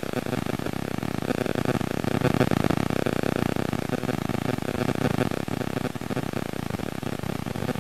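A car engine running steadily, swelling slightly about two to three seconds in.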